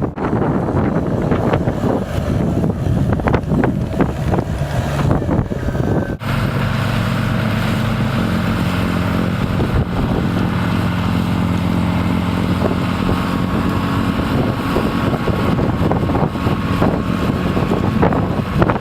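Wind buffeting the microphone over rough outdoor noise with scattered knocks; after an abrupt cut about six seconds in, a steady low engine hum runs on, typical of snow-clearing machinery working the street.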